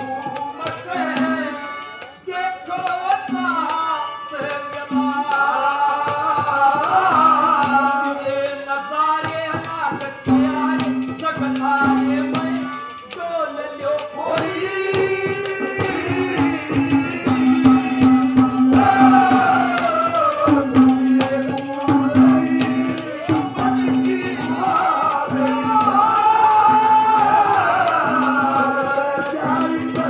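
A man singing into a microphone over a dense run of drum strokes, with a recurring held low note under the voice.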